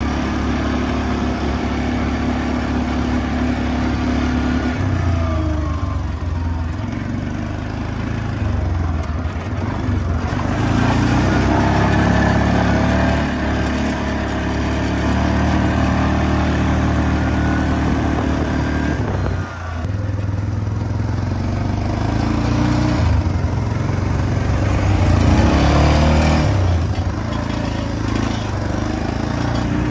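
ATV engine running as the four-wheeler is ridden, its pitch rising and falling with the throttle, with a brief drop in engine sound about two-thirds of the way through.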